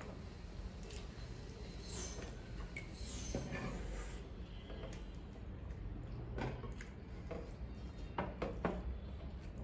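Quiet eating sounds: fingers scraping and mixing rice on metal plates, with scattered small clicks and rustles, and a few sharper clicks near the end.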